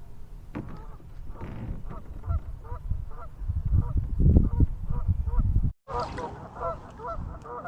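A flock of geese honking over and over, with wind rumbling on the microphone for most of it; the sound drops out for a moment near the end and the honks come through clearer after.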